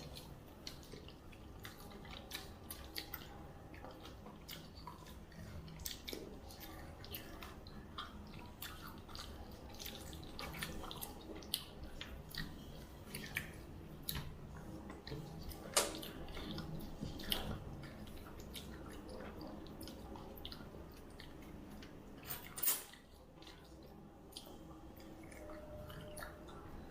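Quiet eating sounds: chewing and mouth noises with scattered small clicks and taps, louder once about two-thirds of the way through.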